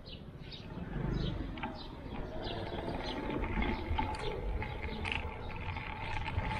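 A bicycle being ridden over paving stones: a high squeak repeats about twice a second over the rumble of the tyres, which grows louder about a second in.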